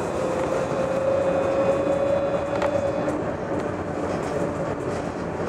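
Inside a Luas light-rail tram under way: a steady rumble of wheels on rail with a motor whine that rises slowly in pitch for the first few seconds as the tram gathers speed, then holds steady.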